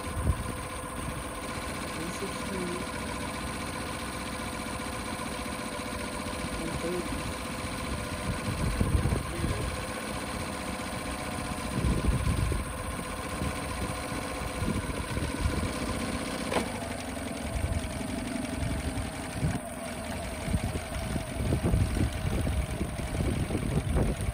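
2006 Honda 8 hp four-stroke outboard running steadily in a test tub of foaming Salt-Away flush water, with low uneven exhaust burbling. Its engine note changes a little about two-thirds of the way through.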